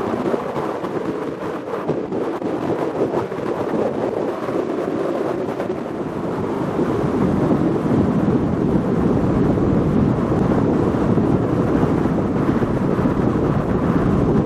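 Wind buffeting the microphone on a boat under way at sea, with a steady rushing rumble of the boat and water beneath it. The noise grows louder about halfway through.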